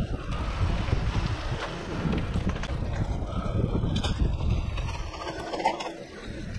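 Wind buffeting the microphone while a mountain bike rolls over rough alley pavement, with a steady low rumble and a couple of sharp knocks or rattles in the second half.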